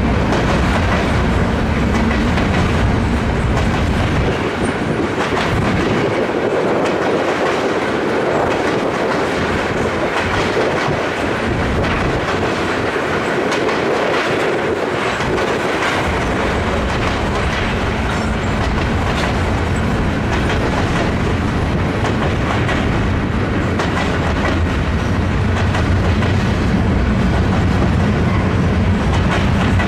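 Norfolk Southern freight train of gondola cars rolling past, wheels clicking over rail joints over a steady rumble. The deep part of the rumble thins out for a stretch in the middle and then comes back.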